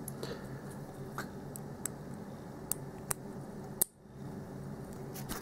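Light, scattered metallic clicks and ticks from handling a disassembled American Lock 5200 padlock core and its small pins, over a low steady hum.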